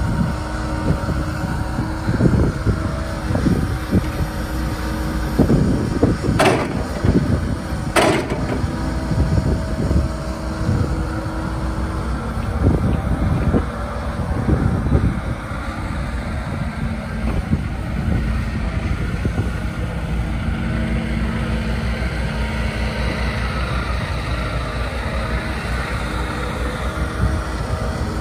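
Hitachi ZX75US-3 excavator's diesel engine running steadily under load as it digs and lifts soil with its hydraulics. Two sharp clanks about six and eight seconds in.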